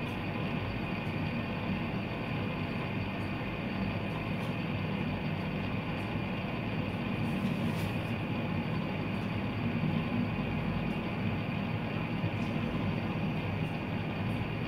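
Fidget spinner whirring on a tabletop, its centre ball bearing making a steady rumbling whir as it keeps spinning.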